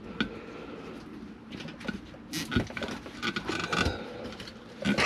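Hands working plastic wiring connectors and a harness: irregular small clicks, taps and rustling, with a cluster of louder clicks about two and a half seconds in and another near the end.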